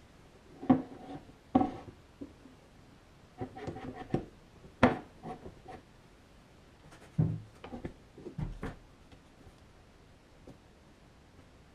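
A scattered series of short knocks, clacks and scrapes, as of hard parts being handled and set down, with a few sharp loud clacks; it falls quiet in the last few seconds.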